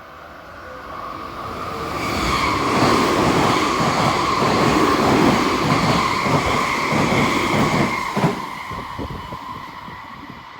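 Electric train passing by: it grows louder over the first couple of seconds, then runs with a steady whine and a rapid clatter of wheels over the rails, and fades away over the last few seconds.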